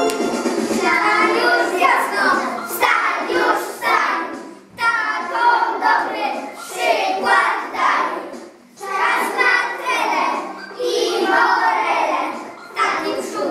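A group of young children singing a song together in short phrases with brief breaks between them.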